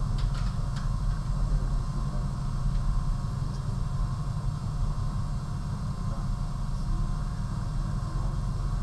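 Steady low rumbling hum, with a few faint clicks in the first second.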